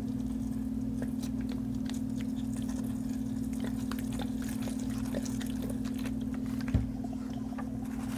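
Loose potting mix with perlite crackling and ticking as it is worked and pressed into a plastic cup, over a steady low hum. A single dull thump comes near the end.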